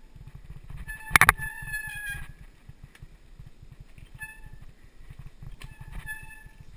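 Mountain bike rolling and rattling over a bumpy dirt singletrack, with a constant low rumble. A loud clunk about a second in comes with a high squeal that lasts about a second, and two more short squeals follow near four and six seconds in.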